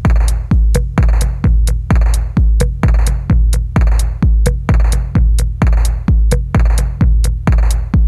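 Electronic dance music with a deep kick drum on a steady beat, about two beats a second, and a crisp high tick between the beats.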